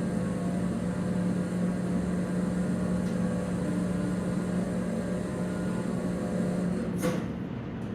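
Steady low engine hum with an even, unchanging drone, and a brief sharp rustle or knock about seven seconds in.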